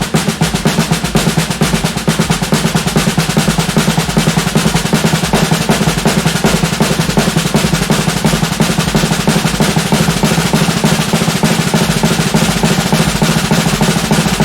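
Snare drum roll: very fast, even strokes held at a steady, loud level, with no break or build.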